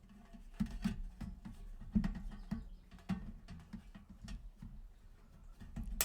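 Irregular light clicks, taps and scrapes of hands handling and fitting small parts on a small UPS unit, over a faint low hum.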